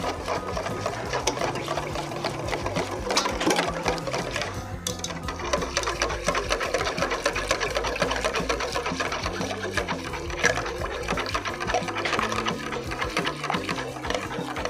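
Wire whisk beating a thick, creamy mayonnaise-and-cream sauce in a stainless steel bowl: rapid, steady clicking and scraping of the wires against the metal bowl, with a wet slapping of the sauce.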